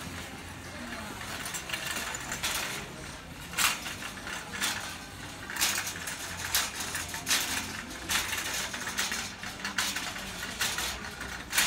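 Wire shopping cart being pushed across a store floor, rattling and clinking sharply about once a second over a steady background hum.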